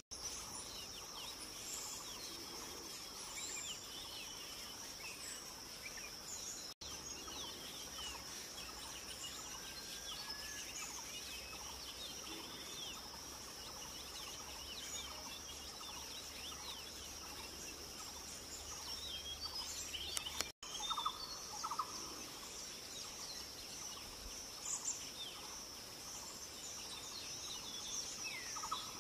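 Outdoor bird and insect chorus: a steady high-pitched insect drone, with many small birds chirping and giving short repeated calls, a burst of louder calls about two-thirds of the way through. The sound drops out for an instant twice.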